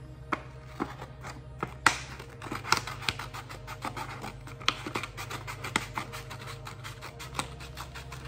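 Scissors cutting through a folded paper plate: a run of irregular snips, some sharper than others.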